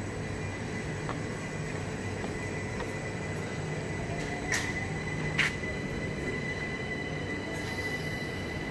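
Southern passenger train rolling slowly past along a platform: a steady low rumble with a thin high whine. About halfway through come two sharp knocks, a second apart.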